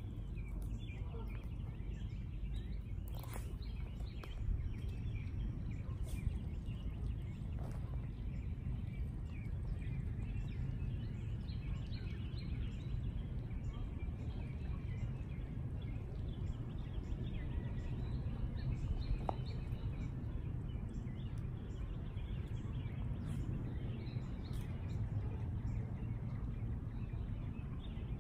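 Outdoor pond-side ambience: a steady low rumble with many small bird chirps scattered throughout, and a few faint clicks.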